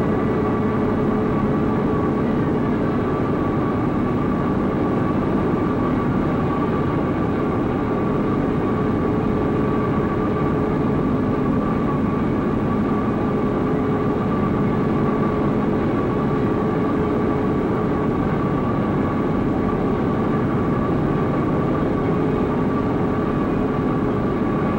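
Steady, unchanging drone of heavy shop machinery, with two constant hums over a dense rumble.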